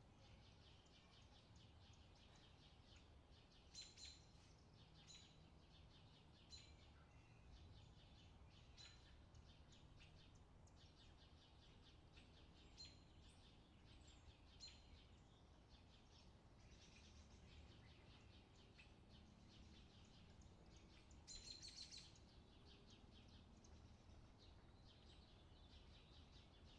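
Faint recorded summer birdsong: birds chirping in short high calls, with a denser flurry of calls about three-quarters of the way through, over a low steady hum.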